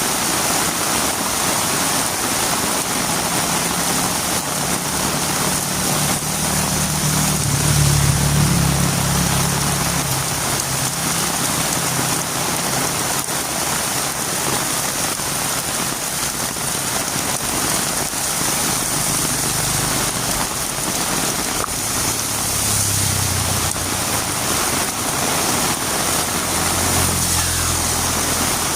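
Heavy rain falling steadily on a road, a constant hiss. A motor vehicle's low engine sound swells and fades, loudest about a third of the way in, and engine sound rises again in the last third.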